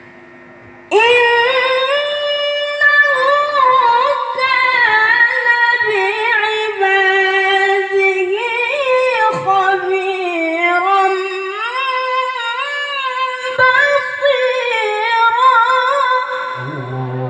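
Quran recitation in the melodic, sung style: one long, heavily ornamented phrase held on a single breath, the voice sweeping up and down in pitch with many small turns. It starts about a second in.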